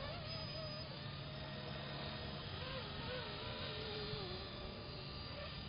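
Electric Blade SR collective-pitch RC helicopter flying overhead: a thin motor-and-rotor whine that wavers up and down in pitch as it manoeuvres, over a steady low hum.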